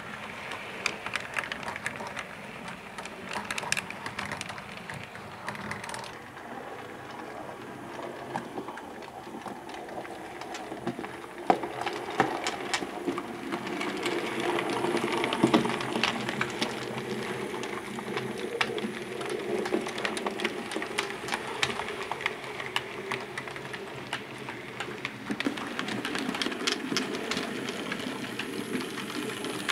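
A model 4MT Standard Tank locomotive running along the track: its small electric motor and gears whirring steadily, with frequent light clicks from the wheels. It grows louder about twelve seconds in.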